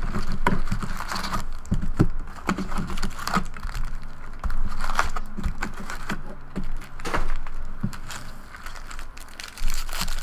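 Plastic wrapping on sealed trading-card packaging crinkling and tearing as it is opened, with irregular crackles and snaps.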